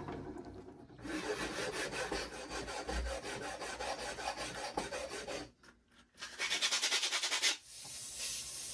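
Quick rubbing strokes on wood by hand, in two spells: a long run, a pause of about a second, then a faster, louder flurry of strokes.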